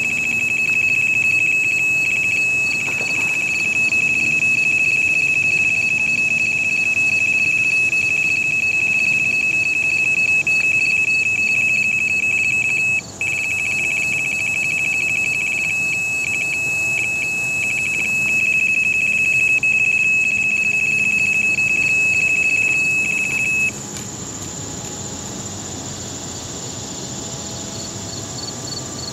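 Electronic carp bite alarm sounding one continuous high-pitched tone as a fish runs with the line. The tone breaks into rapid beeps in the second half and cuts off suddenly about 24 seconds in. Insects chirr steadily behind it.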